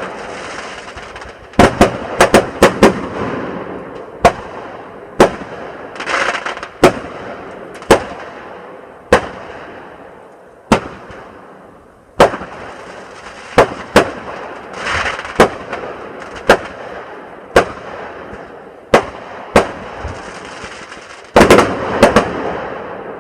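Fireworks going off: sharp bangs every second or so, some in quick clusters of three or four, several followed by a trailing hiss. A dense flurry of bangs comes near the end.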